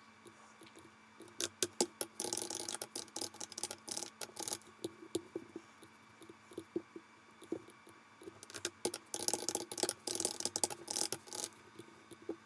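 Computer keyboard typing and mouse clicking: two quick runs of keystrokes, about two seconds in and about eight and a half seconds in, with scattered single clicks between them.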